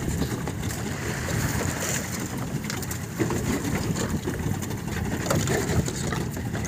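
Steady low rumble and wash of a small fishing boat at sea, with a few faint clicks and knocks.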